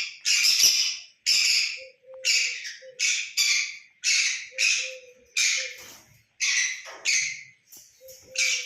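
Pet parrot squawking: a steady run of short, harsh calls, well over a dozen, about one and a half a second.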